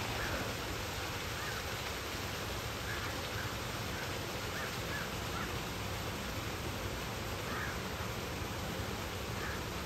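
Steady rushing noise with faint, short bird calls scattered through it.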